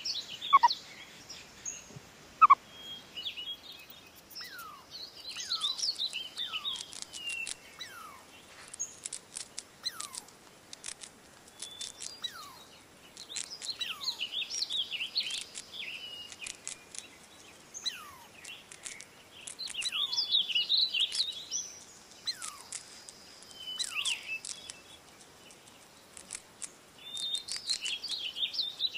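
Bird-like chirping: bursts of high twittering every few seconds and a short falling whistle about once a second. Two sharp, louder chirps come in the first few seconds.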